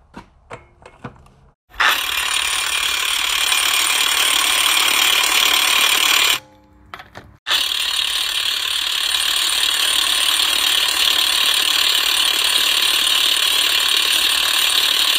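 Chicago Electric 18V half-inch cordless impact wrench hammering on a car wheel's lug nut, in two long runs with a pause of about a second between them.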